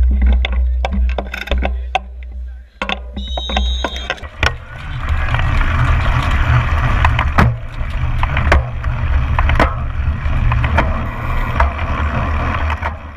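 Mass start of a cyclocross race heard from a bike-mounted camera: a low rumble with sharp clicks, and a brief high tone about three seconds in. From about four and a half seconds a steady rush of noise over the rumble as the bikes roll off across the grass.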